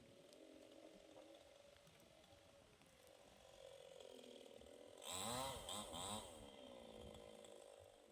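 Faint small engine running steadily, most likely a chainsaw in coconut-tree cutting, with one brief rev about five seconds in, rising in pitch and falling back after about a second and a half.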